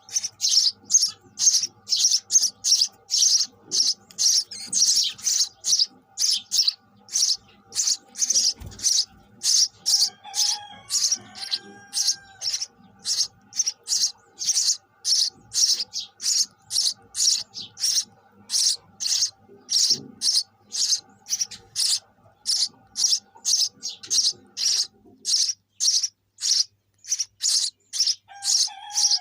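Sparrows chirping in a fast, even series of short, high chirps, about two to three a second.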